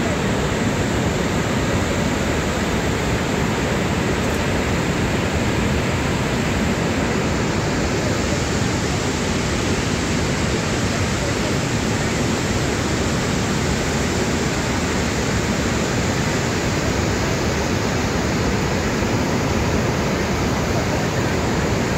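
Niagara's Horseshoe Falls, a steady loud rush of falling water with no letup.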